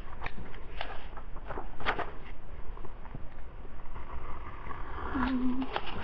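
Scalpel blade scratching through paper as a pattern is cut out: short, irregular scratchy strokes.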